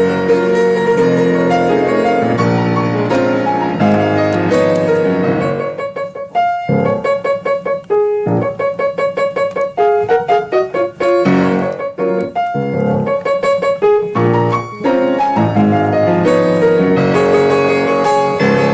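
Piano music: full chords, thinning in the middle to a passage of separate single notes, then full chords again.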